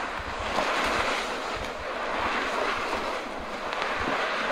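Loaded black plastic sled dragged over a gravel and dirt road: a steady scraping rush of plastic sliding on grit and stones.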